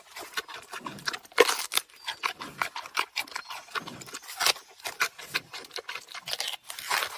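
Giant panda biting into and chewing a peeled bamboo shoot: irregular crunching bites and chewing, several a second.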